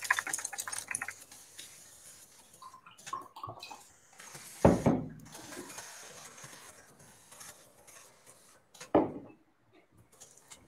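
Small handling noises: scattered light clicks and rustling, with a louder thump about five seconds in and another near nine seconds.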